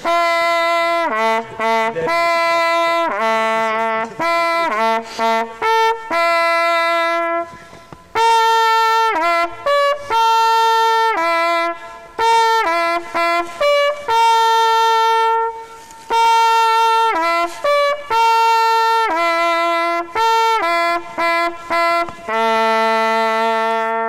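Brass hunting horn blowing a traditional call to honour the killed game: a long run of short and held notes, all on the horn's few natural tones, with brief breaks between phrases. It ends on a long held low note near the end.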